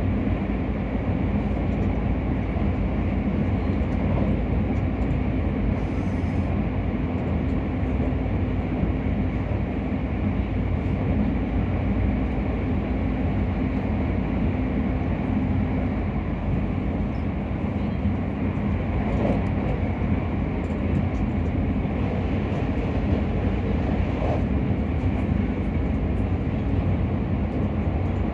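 Keisei Skyliner electric express train running at speed, heard from inside the passenger car: a steady rumble of wheels on the track, with a low hum that stops a little past halfway.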